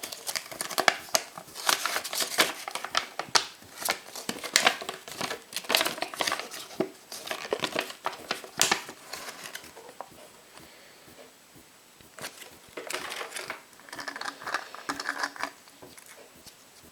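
Foil wrapper of a chocolate surprise egg being crinkled and torn off by hand. It is dense crackling for the first half, then two shorter bursts of crinkling near the end.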